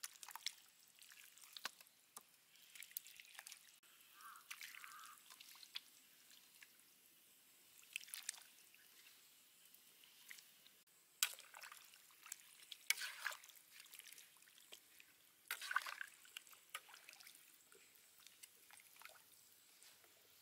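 Pieces of raw duck being set one by one into a wok of liquid, making scattered small splashes and drips at irregular intervals.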